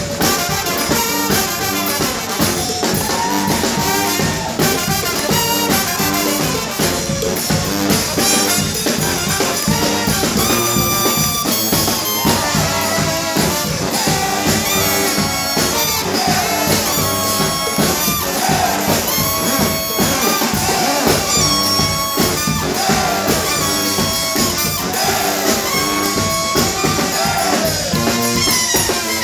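Live brass band playing: trombone, trumpets, saxophones and sousaphone over a steady drum beat.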